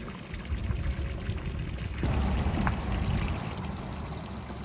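Rushing water of a mountain valley stream, a steady rush that grows louder about two seconds in.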